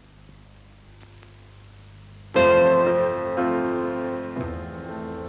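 A faint hum, then, a little over two seconds in, a loud piano chord is struck and rings on. It changes to new held chords twice.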